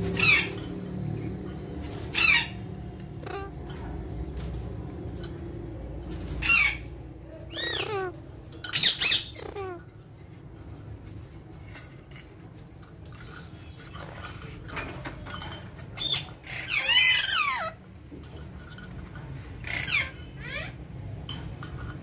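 Alexandrine parakeets giving short, shrill squawks that slide quickly in pitch, scattered at irregular intervals, with a longer string of calls about three-quarters of the way in.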